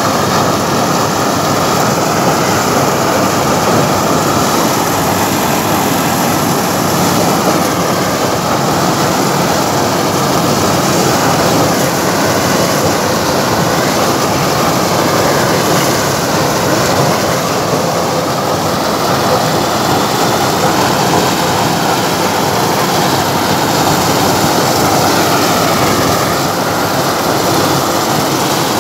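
CLAAS self-propelled maize harvester running under load as its header cuts standing dry maize stalks: a loud, steady mechanical din with a faint high whine that dips briefly now and then.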